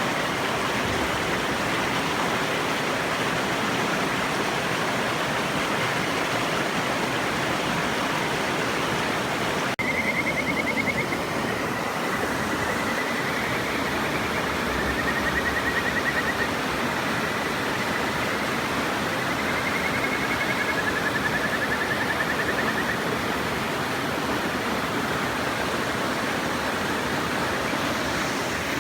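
Steady rush of a river, with a kajika frog (Buergeria buergeri) singing over it from about a third of the way in: a string of high, rapidly trilled whistling notes, some sliding slightly in pitch, that stop after about thirteen seconds.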